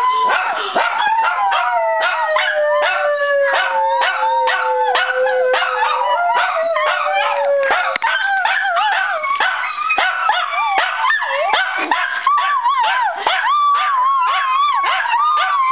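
Dogs howling together, mixed with rapid yips and barks throughout. One long howl slides slowly down in pitch over the first half, and higher, wavering howls take over near the end.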